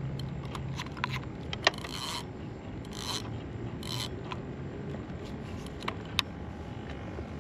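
Fishing tackle being worked as bait is sent out, most likely the reel: three short mechanical rasps about a second apart, with scattered sharp clicks.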